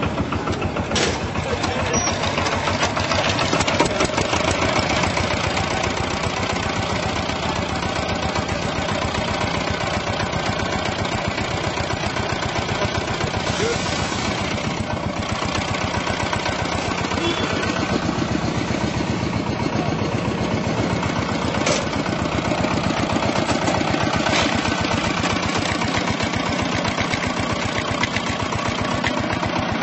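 Exposed single-cylinder diesel engine of a Chinese three-wheeled farm vehicle idling steadily, a fast, even chugging.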